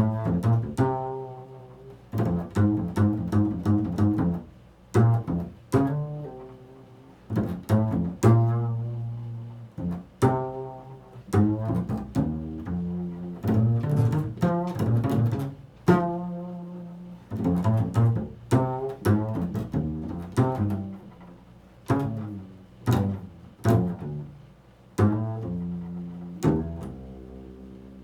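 A low-pitched string instrument played by plucking: a slow, loose phrase of single notes, each starting sharply and ringing away, with short pauses between groups. It is the day's 'vibration', a phrase built on the interval of a fourth.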